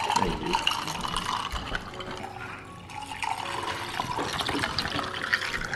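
Soya milk being poured from a can into a glass of ice, a steady stream of liquid splashing as the glass fills.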